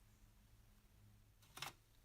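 Near silence with a faint low hum, then a short cluster of sharp clicks about a second and a half in.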